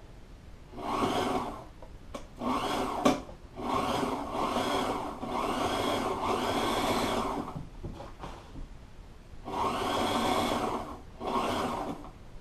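Portable sewing machine stitching a seam through boat upholstery material, its motor running in about six short runs that start and stop as the material is fed, with a longer pause of about two seconds past the middle. A single sharp click about three seconds in.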